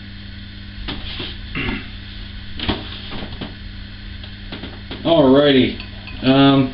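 A steady low electrical hum, with a few soft knocks and handling noises in the first half, then a man says "alrighty" near the end.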